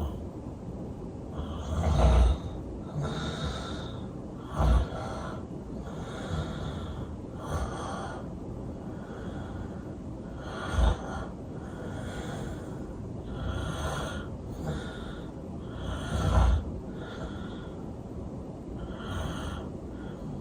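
A person snoring, a breath every second or two, with four louder, sharper snorts about 2, 5, 11 and 16 seconds in.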